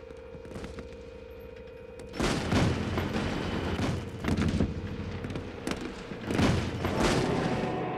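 A steady tone, then about two seconds in, battle sounds break in suddenly: rapid gunfire and booming blasts that come in several loud surges.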